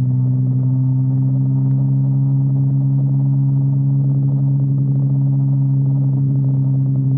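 Sport motorcycle engine running at steady cruising revs, its note holding one steady pitch.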